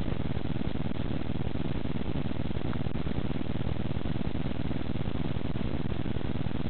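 Steady, even rushing noise, strongest in the low range, with no distinct events.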